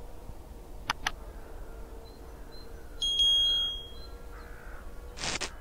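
Subscribe-button animation sound effects: two quick mouse clicks about a second in, then a bright electronic ding, the loudest sound, lasting about a second from around three seconds in, and a short whoosh near the end.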